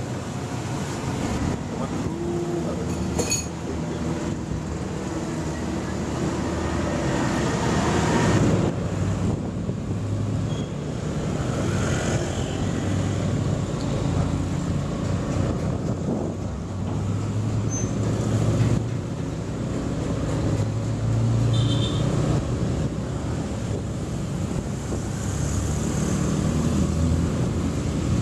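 Motorcycle riding along a road: its engine running, with wind and road noise and the sound of traffic around it.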